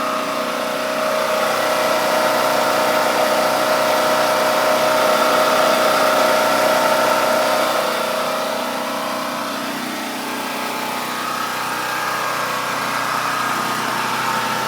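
Champion 4000-watt portable generator's engine running steadily just after its first start, with no choke needed. It is running quiet.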